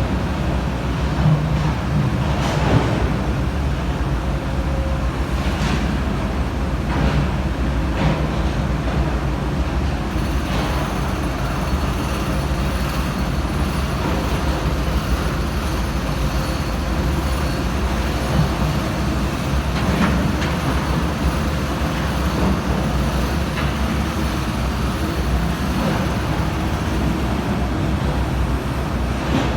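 Komatsu PC350-7 excavator's six-cylinder diesel engine running steadily under work, a continuous low rumble, with a few sharp knocks of metal here and there.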